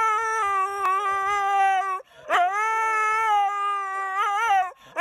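Husky howling in long, drawn-out calls. One call breaks off about two seconds in, and a second follows at once, wavering in pitch near its end.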